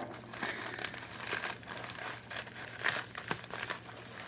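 Packaging being unwrapped by hand: irregular crinkling and crackling of wrapping material, with the odd tear.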